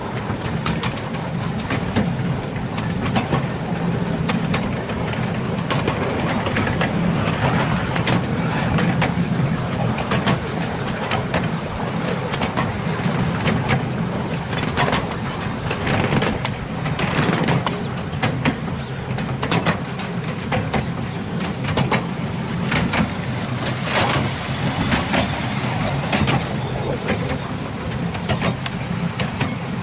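A 7¼-inch gauge miniature diesel locomotive running steadily with a low hum, heard from a carriage it is hauling, while the wheels clatter in irregular clicks over the track.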